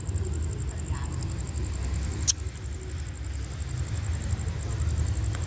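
Low, steady rumble of a distant, approaching Hitachi diesel-electric locomotive, with a high, evenly pulsing trill over it and a single sharp click a little past two seconds in.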